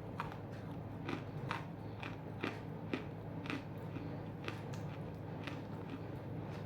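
Person biting and chewing chunks of half-roasted edible clay: a string of sharp, irregular crunches, about a dozen in all, over a steady low hum.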